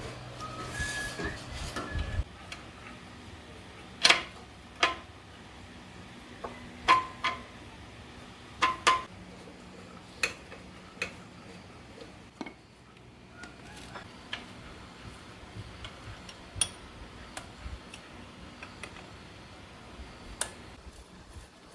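Metal tools and parts clinking and tapping: about a dozen irregular sharp knocks, a few with a short metallic ring.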